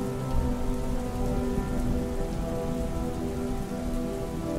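Steady rain sound layered over the slowed, reverb-heavy instrumental intro of a pop song, with long held synth chords. A low bass swells in near the start.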